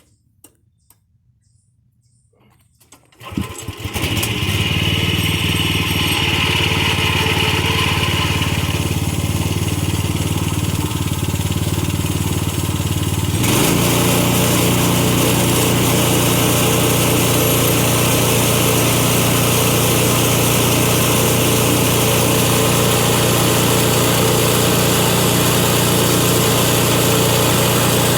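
A portable band sawmill's gasoline engine starting up about three seconds in after a few clicks, then running steadily. About halfway through it steps up to a louder, fuller, constant run as the mill is brought up to cutting speed.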